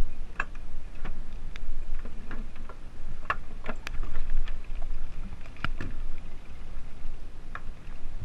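Irregular sharp clicks and knocks of gloved hands and gear against a sailboat's fibreglass cockpit, hatch and fittings, over a steady low rumble.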